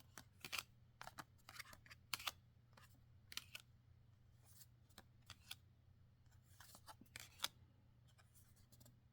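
Trading cards and their foil booster pack being handled: irregular soft, crisp clicks and rustles as the cards are slid and flipped one by one, one sharper click about seven seconds in.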